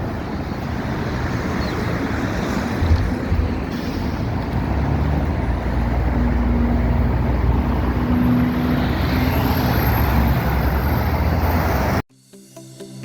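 A MAZ 216.047 articulated bus driving along: a steady low engine rumble and road noise, a little louder from about five seconds in. About a second before the end it cuts off abruptly to electronic music.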